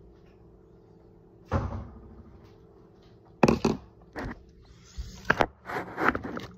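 A thud, then a quick run of knocks and clunks as kitchen items are handled close by, including a clear glass jar being moved and set down near the end.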